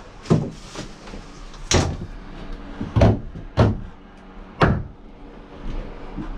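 An irregular run of about six sharp knocks and thuds, each a second or so apart, as of hard objects being handled and set down.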